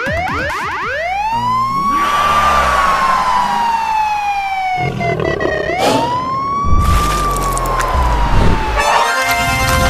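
A siren wailing in two long cycles. Each rises quickly and then falls slowly, and the second starts about halfway through. A low rumble runs underneath.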